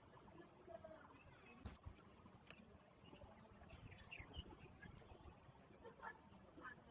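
Faint outdoor ambience: a steady high-pitched whine under a few faint, distant chirps, with a single sharp click about a second and a half in.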